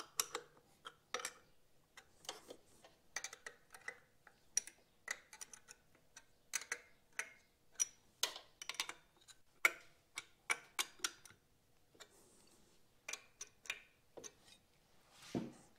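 Small wrench clicking and tapping on the carburetor mounting nuts as they are tightened evenly, a little at a time. Irregular sharp metallic ticks, about one or two a second, with a duller knock near the end.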